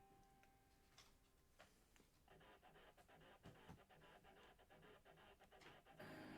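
Near silence with faint scattered clicks and light rubbing, growing busier after about two seconds. Background music comes back in near the end.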